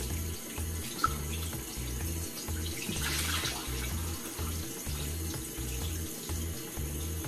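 Water running steadily from a tap, with a low pulsing beat of music underneath at about two beats a second. There is a single sharp click about a second in.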